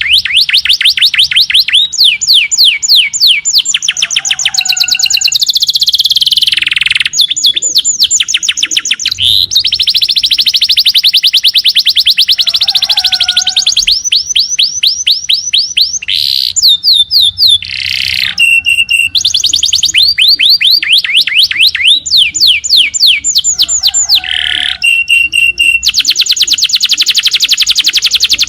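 Small songbird singing loud rapid-fire trills: long strings of sharp downward-sweeping notes, a dozen or so a second, broken by short pauses and a few brief whistled notes. This is the 'tembakan' (shooting) style of song used as tutoring song for murai batu and kacer.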